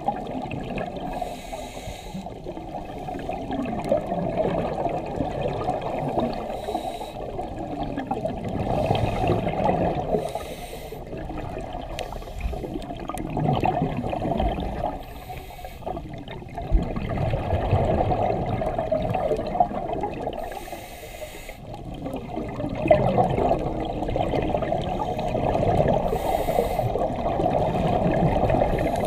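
Scuba diver breathing through a regulator underwater: gurgling exhaust bubbles and short inhalation hisses, in slow cycles that swell and fade every few seconds.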